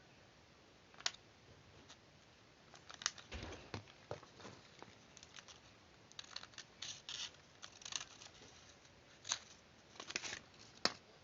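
Scissors cutting paper: a series of short, irregular snips with some paper rustling.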